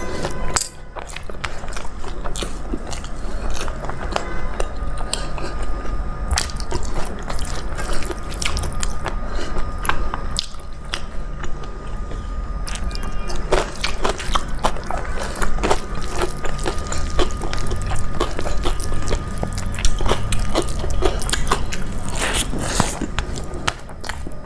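A person eating a rice-and-dal meal close to the microphone: chewing with many short, irregular mouth clicks.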